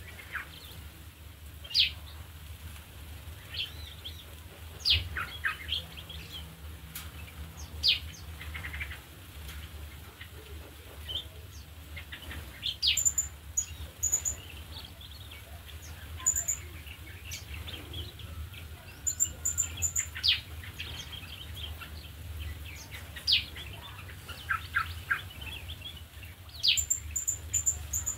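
A flock of small aviary birds chirping and calling: sharp single chirps every second or two, with now and then a quick run of very high, rapidly repeated notes.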